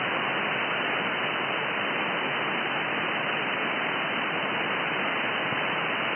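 Shortwave receiver's audio with no station on frequency, tuned to about 18.154 MHz in the 17 m band: a steady hiss of band noise, with the treble cut off by the receiver's filter.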